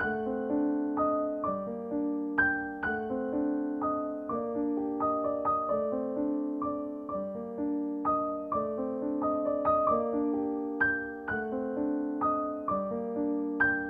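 Background piano music: a slow, repeating pattern of struck notes that ring and fade.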